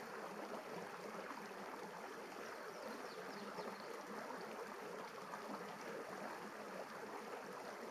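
Shallow river rapids: water running steadily over rock ledges in an even rushing hiss.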